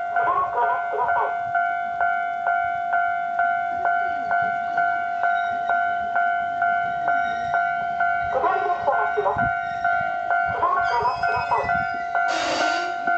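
Japanese railway level-crossing alarm ringing its electronic bell, evenly repeated about one and a half strikes a second, with a recorded voice warning heard over it twice. A short loud hiss breaks in near the end.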